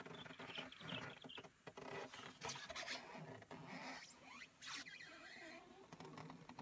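Faint scraping, rustling and small irregular clicks with a light patter, the sounds of a mokoro dugout canoe being poled through the water.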